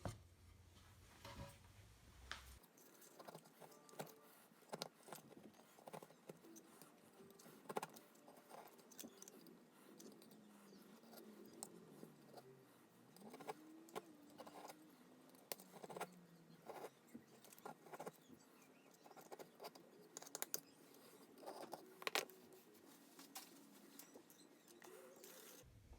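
Faint, irregular scraping and light clicks from a blade or scraper working old glue and surround residue off a car speaker's rim, cleaning it so the new surround can be glued down.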